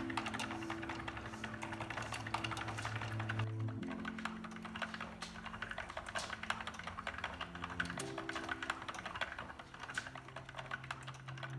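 Wood-and-brass automaton mechanism clicking and clattering rapidly and irregularly as it runs. Under it plays background music of slow held chords that change about every four seconds.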